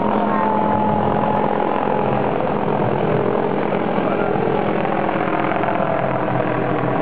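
A steady engine drone with no break, one faint tone sinking slowly over a noisy rumble.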